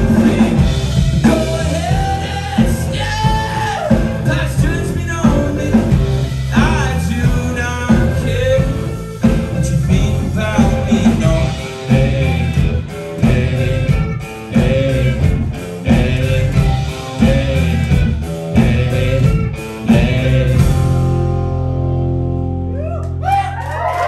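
Live rock band with male lead vocals, electric guitars and drum kit playing the end of a song. About 21 seconds in the band stops on a held final chord that rings out and fades, and near the end the crowd starts to cheer.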